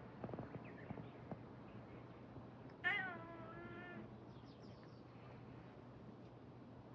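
A cat meows once, about three seconds in, a single call of about a second that wavers slightly in pitch. A few short clicks come before it in the first second and a half.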